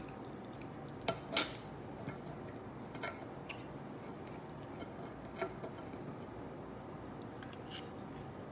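Scattered light clicks and taps of dishes and cutlery handled at a meal, the sharpest about a second and a half in.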